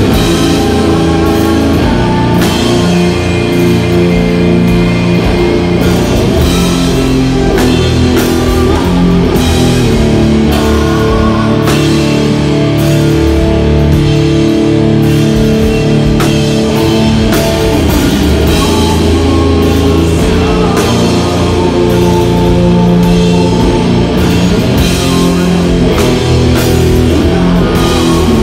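Doom metal band playing live: heavily distorted electric guitars and bass holding slow, sustained chords over drums and crashing cymbals, loud and unbroken.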